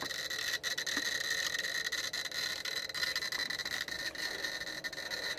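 GMC-320 Plus Geiger counter's beeper clicking rapidly and irregularly, dozens of clicks a second blurring into a dense crackle over a steady high tone. Each click is one detected count from the radioactive plate beneath it, at over two thousand counts per minute.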